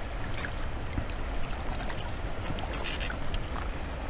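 Steady rush of river rapids water, with scattered short clicks and small splashes, a cluster of them about three seconds in.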